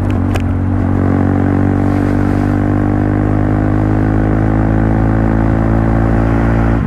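Honda CBR150R's single-cylinder four-stroke engine running steadily at a constant speed, with a brief unsteadiness and a couple of sharp clicks about half a second in.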